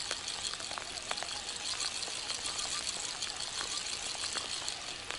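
Light water splashing and small clicks over a steady hiss as a hooked bream is played toward the bank on a feeder rod.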